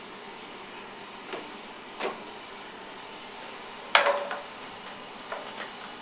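Cookware and utensils being handled: several scattered knocks and clinks, the loudest about four seconds in with a short metallic ring, over a steady faint hiss.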